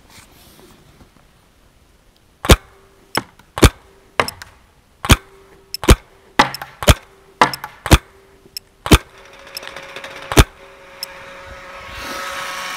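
Paintball marker firing about a dozen single shots, a fraction of a second to a second apart, as it shoots paintballs over a chronograph. A steady rushing noise builds after the last shot.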